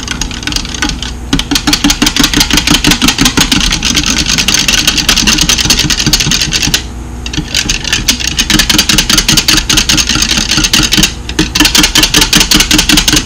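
Wire whisk beating against the inside of a glass measuring cup, mixing cornstarch into cold water for a slurry. The clicking is rapid and even, about seven or eight strokes a second, with brief pauses about a second in, near the middle and about eleven seconds in.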